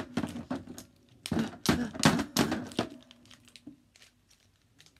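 Plastic wrestling action figures being handled and knocked against each other and the toy ring, a quick run of sharp clacks and scuffs for about three seconds, then a few faint taps.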